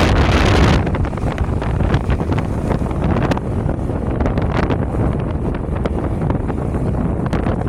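Wind buffeting the microphone: a loud, rumbling rush with scattered crackles, brightest and loudest in the first second.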